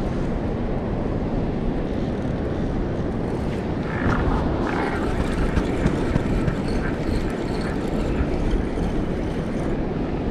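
Steady low rumbling of wind and ocean surf at the shore, with a few faint higher sounds about four to five seconds in.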